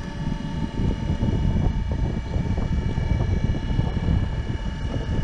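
Wood-Mizer LT35 HD portable sawmill running, a steady machine drone with several constant high tones over a heavy, uneven low rumble.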